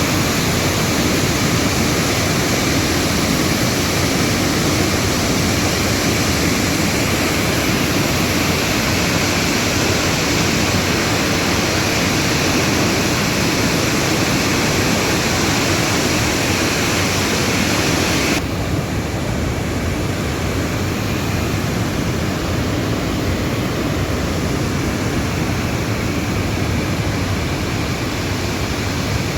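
Steady, loud rush of river water churning through a narrow rock canyon. About 18 seconds in it changes abruptly to a duller rush with less hiss.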